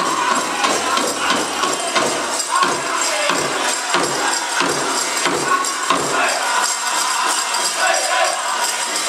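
Powwow drum group drumming and singing a prairie chicken dance song, the big drum struck about one and a half times a second, over the jingling of the dancers' leg bells. The drumbeat drops out about six seconds in while the singing and jingling go on.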